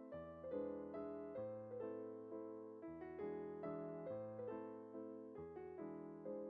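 Soft background music on electric piano, gentle chords struck and left to fade one after another.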